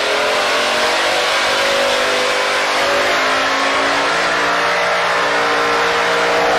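A car engine running at a steady speed, its pitch drifting slightly, over a loud hiss.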